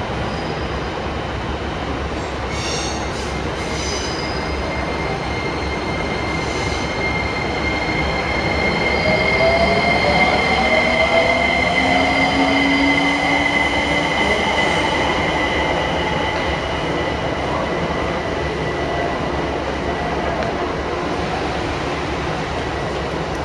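JR Kyushu electric express trains pulling into a station: steady rolling noise with a high wheel squeal held for several seconds. Lower tones slide in pitch as a train comes close, loudest about halfway through.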